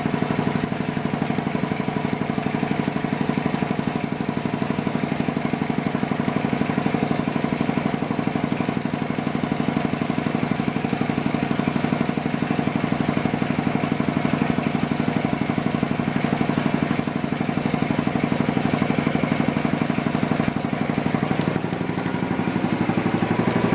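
Champion 5-horsepower three-phase reciprocating air compressor, its Baldor electric motor driving the pump, running steadily with a fast, even pulse as it builds air pressure in the 80-gallon tank.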